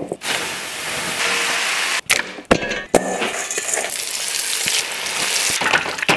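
Hot oil sizzling steadily as battered cucumber and onion pieces fry in a skillet, broken about two seconds in by a short pause with a few sharp clicks.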